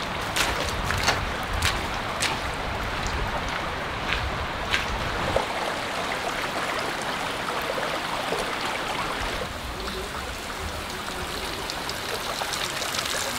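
A shallow creek running and trickling over gravel, a steady rush of water. In the first few seconds, sharp splashy steps of sandalled feet through the shallow water stand out above it.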